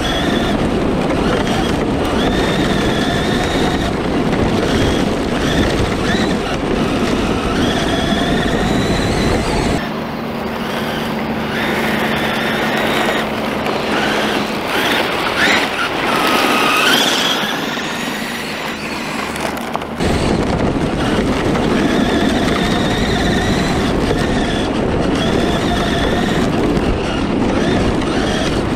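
A 1/10 Traxxas E-Revo electric RC truck racing on gravel, heard from on the truck. There is a constant rumble of wind and gravel, and over it the whine of the electric drive rises and falls as the truck speeds up and slows. From about ten to twenty seconds in the rumble drops away, and the same racing is heard from beside the track, with lighter crunching and whining.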